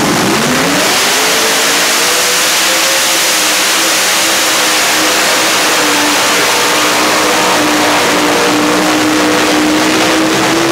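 Modified-class pulling tractor's engines at full throttle, dragging a weight-transfer sled down the track. They rev up sharply at the start and then hold a loud, high, steady pitch under load.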